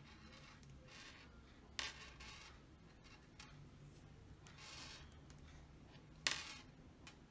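Faint rustling of nylon monofilament fishing line handled and wrapped by fingers while a hook knot is tied, with two short sharp clicks, the louder one near the end.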